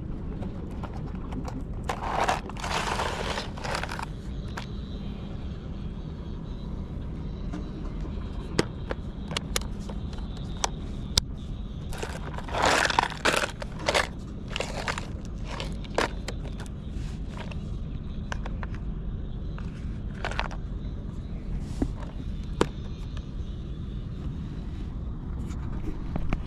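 Clear plastic lure box being handled on a concrete pier wall: two spells of scraping and rattling, about two seconds in and again about halfway, with scattered sharp plastic clicks between them. A steady low rumble lies underneath.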